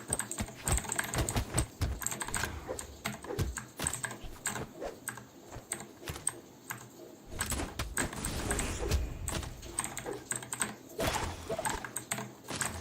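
Typing on a Vortexseries VX8 mechanical keyboard with its stock blue clicky switches: a steady, fast run of keystrokes, each a sharp click-clack.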